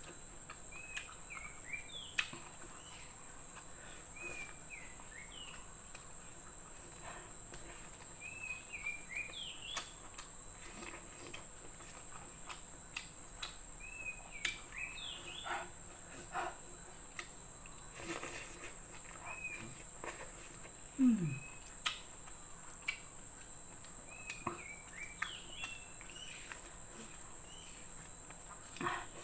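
Steady high-pitched drone of insects, like crickets, with short bird chirps repeating every few seconds and scattered small clicks of eating. About 21 seconds in, a short low sound slides downward, the loudest moment.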